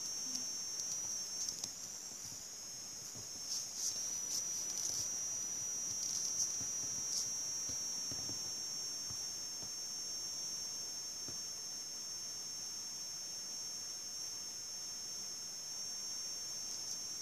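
A steady high-pitched whine that wavers slightly in pitch about two seconds in, with a few faint clicks between about three and seven seconds in.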